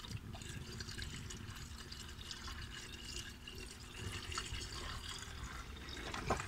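Water pouring from a plastic bottle into a car's coolant expansion tank, a steady trickling and splashing into the filler neck. The tank is being topped up after the engine overheated and boiled its coolant out.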